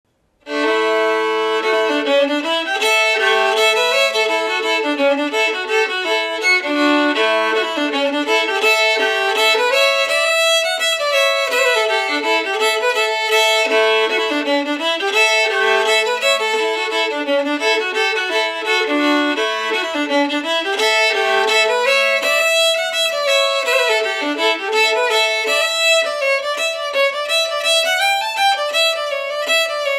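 Fiddle playing a tune, with one note held steady as a drone beneath the moving melody; it starts about half a second in.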